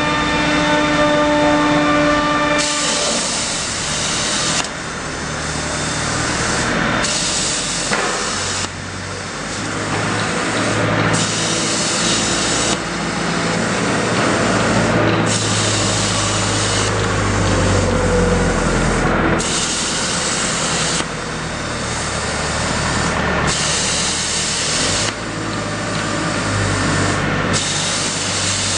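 CNC plasma cutter cutting steel plate: a loud, steady hiss from the plasma arc and its air stream, the high part of the hiss cutting in and out every few seconds, with a low hum coming and going underneath. A steady whine with several tones sounds for the first couple of seconds.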